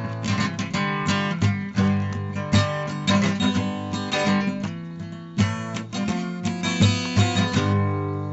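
Acoustic guitar music, strummed and picked chords, with the last chord ringing out and fading near the end.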